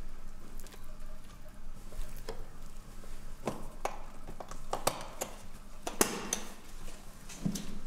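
Irregular small clicks and knocks from a man handling things at close range, the loudest about six seconds in, over a faint steady hum.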